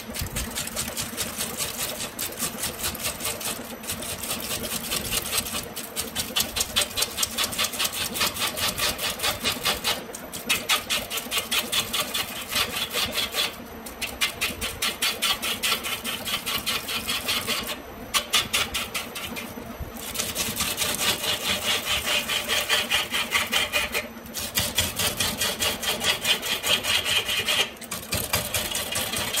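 Wood lathe spinning a length of green bamboo while a hand-held turning tool cuts into it: a fast, dense chatter of the tool on the spinning bamboo over the steady hum of the lathe motor, with brief pauses in the cutting every few seconds.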